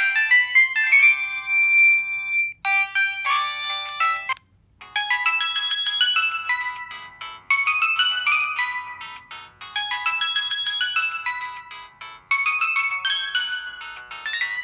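Samsung GT-E1170 mobile phone ringtones playing: bright electronic melodies, with a short rising run ending in a held note, then a new tune after a brief pause about four and a half seconds in.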